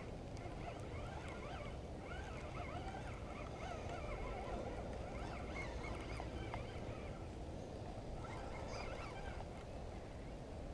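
Birds chirping repeatedly in short, high calls, over a low steady rumble on the microphone.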